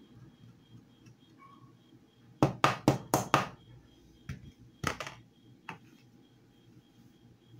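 A quick run of about five sharp knocks, then two more and a single one: a handheld cheese grater tapped against the rim of a mixing bowl to shake off grated cheddar, then set down on the table.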